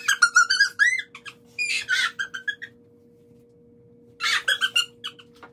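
Two women laughing hard in high-pitched, squealing fits. The laughter stops for a moment past the middle, then comes back in a shorter burst near the end.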